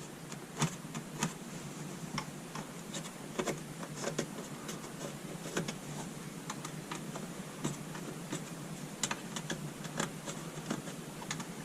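Irregular light clicks and taps of hands handling small hardware and tools, a few sharp ticks scattered through a faint steady background.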